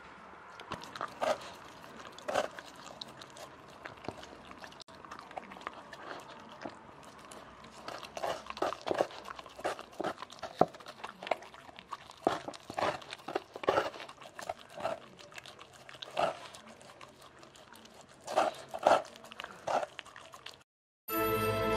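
A dog licking and biting frozen food off a rubber lick mat, heard close up as irregular wet licks, smacks and crunches that come thicker in the second half. Near the end the sound cuts out briefly and music begins.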